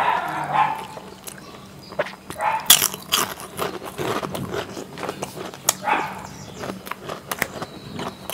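Wet lip smacks and tongue clicks of a person eating chutney and rice by hand and licking the fingers: a scattered series of sharp smacks, busiest about three seconds in and again near six seconds.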